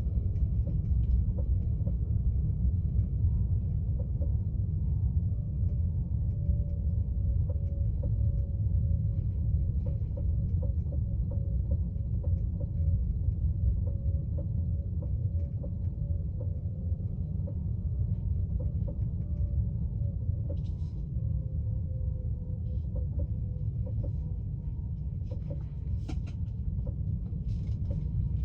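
Tesla Model 3 at about 8 to 9 mph, heard from the back-seat floor: low, steady road rumble with a faint steady whine and a light knock that repeats again and again. The owner calls it a consistent thump at low speed, a fault in a new car whose cause Tesla has not found.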